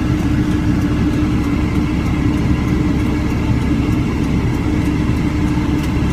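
Flatbed truck engine idling, heard from inside the cab: a steady low rumble with a constant hum.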